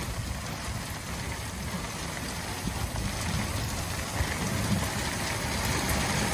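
Heavy rain pelting down on the sea and an open fishing boat: a steady hiss with a low rumble underneath, growing a little louder toward the end.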